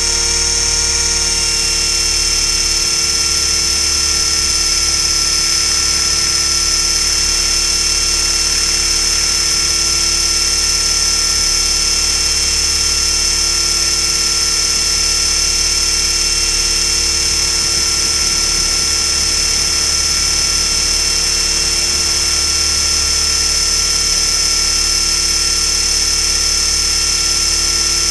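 Align T-Rex 500 electric RC helicopter's motor, gears and rotor running with a loud, steady high-pitched whine at an unchanging pitch, picked up by a camera strapped to the helicopter's frame.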